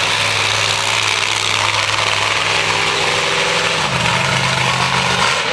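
Monster truck engine idling steadily, then revved up a little about four seconds in and held before dropping back near the end.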